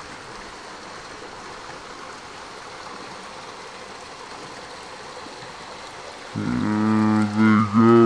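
A small waterfall's thin, low summer flow trickling steadily over rocks. About six seconds in, a person's voice holds a drawn-out, level-pitched hum or "uhh" for about two seconds, louder than the water.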